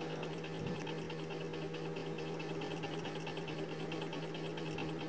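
Chicken pieces deep-frying in a pan of hot oil, sizzling and bubbling steadily, the pieces nearly cooked through. A steady low hum runs underneath.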